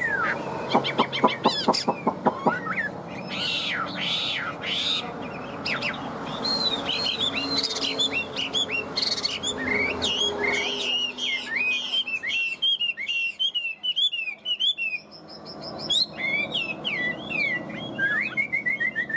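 Chinese hwamei singing a long, varied song of sliding whistled phrases and quick trills. Near the start there is a run of fast, evenly spaced clicking notes, and near the end a series of short repeated notes falling in pitch.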